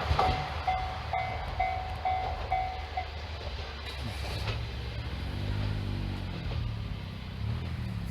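Japanese railroad crossing's electronic warning bell ringing about twice a second and stopping about three seconds in, over the fading rumble of a passing train.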